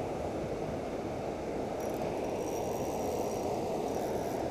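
Steady, low rushing of fast-flowing creek water running over the stones, with no break or change.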